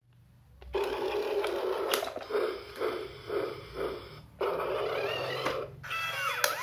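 Battery-powered Thomas the Tank Engine toy train switched on and running, a steady motor hum with rhythmic pulses about twice a second. It cuts off suddenly about four seconds in, starts again briefly and stops.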